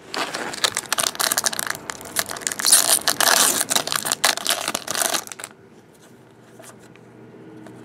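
Foil wrapper of a trading-card pack crinkling and tearing open by hand: a loud, dense crackle for about five seconds. After that come a few faint clicks as the cards are handled.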